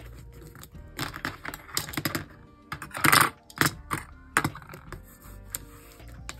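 Paper and craft tools being handled on a work surface: a quick run of taps and clicks, a brief louder rustle about three seconds in, then a few single sharp clicks, over soft background music.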